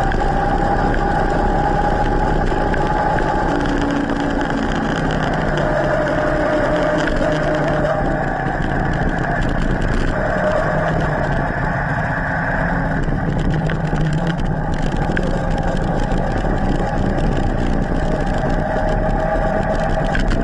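Steady rush of wind and road noise on a bike-mounted camera as an e-mountain bike rolls down a paved road, with faint humming tones that drift in pitch.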